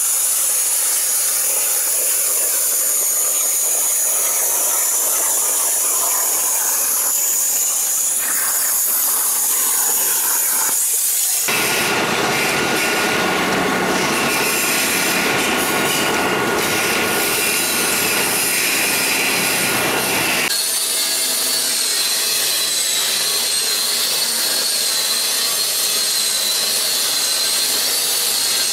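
A plasma cutter hisses, with a high wavering whine, as it cuts sheet metal. About eleven seconds in the sound changes abruptly to the dense, steady running of a press brake as the sheet is bent. About twenty seconds in it changes again to a different steady noise.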